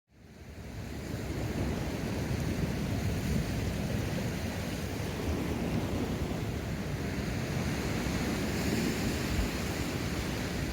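Sea surf washing on a rocky shore, with wind buffeting the microphone; the sound fades in from silence over the first second, then holds steady.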